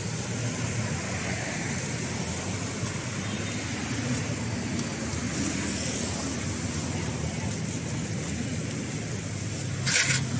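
Street ambience of road traffic, cars and motorbikes passing, with a steady low hum underneath. There is a brief loud burst of noise near the end.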